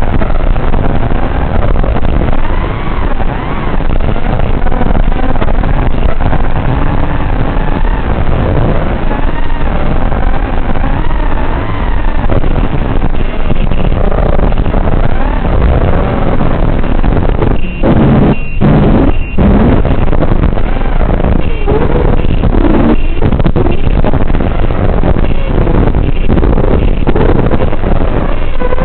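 Brushless motors and propellers of a racing quadcopter (Rotorgeeks 2206 2700KV motors) whining in flight, the pitch gliding up and down as the throttle changes. The sound drops out briefly a few times a little past the middle.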